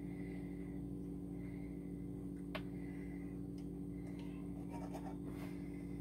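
Small kitchen knife trimming excess pastry dough around the rim of a tart mould: faint scratchy strokes with a sharp click about two and a half seconds in, over a steady low hum.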